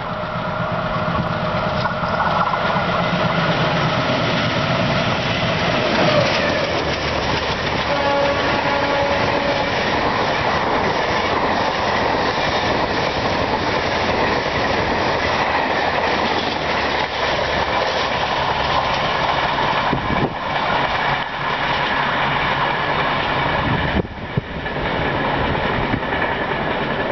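WDM3A diesel locomotive (ALCO engine) and its ICF coaches passing at about 110 km/h. The horn sounds as the train approaches, and the engine is loudest about six seconds in as the locomotive goes by. Then comes a steady rush and clickety-clack of coach wheels over the rail joints, with a brief dip about 24 seconds in.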